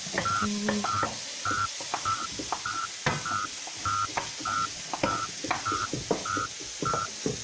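A short electronic beep repeating about twice a second, over irregular taps of a kitchen knife dicing red pepper on a wooden cutting board.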